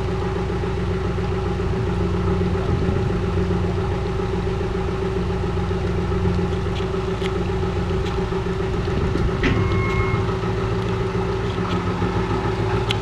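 Narrowboat engine idling steadily, with a few faint clicks over it.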